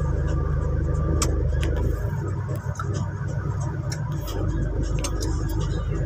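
Car engine running, heard from inside the cabin as a steady low hum. About two seconds in, the drone changes as the car moves off. A few light clicks are scattered through it.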